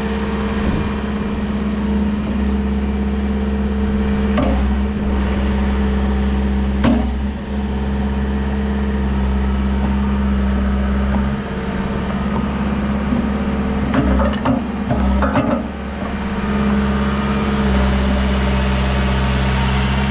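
Case 580 Super M loader backhoe's diesel engine running steadily, with a few sharp knocks: one about four seconds in, another about seven seconds in, and a cluster about fourteen to fifteen seconds in.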